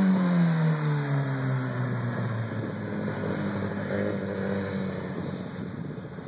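Kawasaki ZX-6R's inline-four engine as the bike rides past and away down the street: its note falls in pitch over the first couple of seconds, then holds steady as it fades into the distance.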